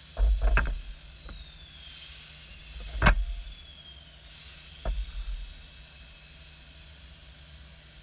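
A model excavator's hydraulic pump whining steadily, its pitch sagging briefly twice under load, while stones tumble from the grab bucket into the truck bed: a cluster of knocks right at the start, one loud thud about three seconds in and another near five seconds.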